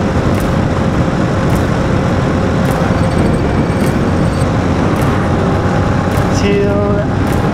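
A motorcycle riding along the road: a steady, loud rush of engine and road noise, with a brief voice near the end.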